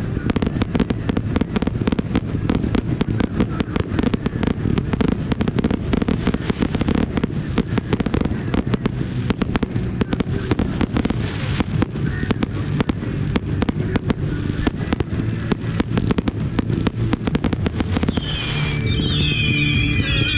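Fireworks going off in a dense barrage, many bangs and crackles a second, with rock music playing underneath. The bursts die away about 18 seconds in, leaving the music clear.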